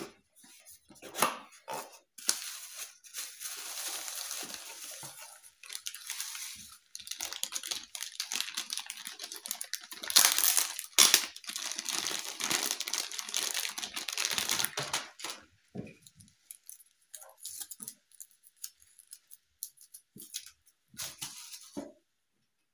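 Packaging being handled and unwrapped: a cardboard box opened, then a plastic bubble-wrap bag crinkling and rustling as an effects pedal is pulled out of it, loudest about ten seconds in. After that, only scattered small handling clicks and rustles.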